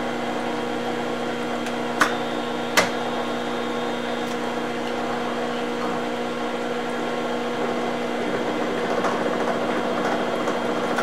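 Milling machine and phase converter running with a steady hum and several steady tones, coolant flowing, as a gear cutter cuts teeth into a silicon-bronze-welded spur gear. Two sharp clicks come about two and three seconds in.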